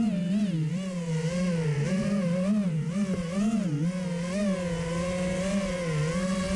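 FPV racing quadcopter's motors whining, their pitch rising and falling constantly with the throttle.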